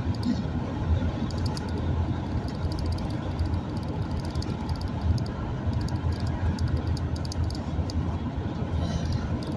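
Steady low engine and road rumble of a vehicle driving down a steep highway hill, heard from inside the cab.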